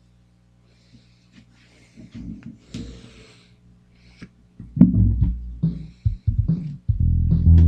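Rustling and light knocks of handling over a steady low hum, then an electric guitar: a loud struck low note about five seconds in, a few more notes, and steady playing beginning near the end.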